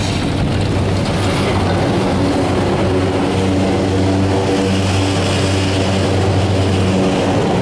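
Detachable chairlift mid-station terminal machinery, heard from a chair passing through the terminal: a loud, steady mechanical hum of several tones over a hiss, growing a couple of seconds in.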